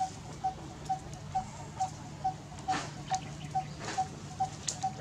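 A short mid-pitched note repeated evenly, a little over twice a second, over a steady low hum. A few brief sharp high chirps come in around the middle and near the end.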